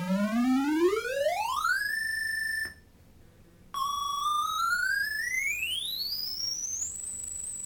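Prism laser synth guitar sounding a square-wave tone in two upward frequency sweeps. The first glides from a low pitch up to a high one over about two seconds, holds briefly and cuts off. After a second's pause the second starts higher and glides up to a very high piercing pitch, holding before it cuts off.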